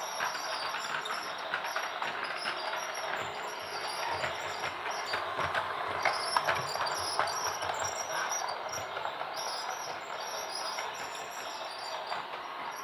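Toy train running: a steady whirring with many small, rapid clicks.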